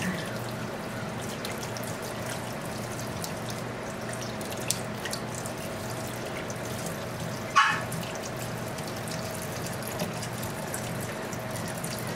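Kitchen faucet running a steady stream of water into a stainless steel sink as a puppy is rinsed under it. One short high-pitched cry about halfway through.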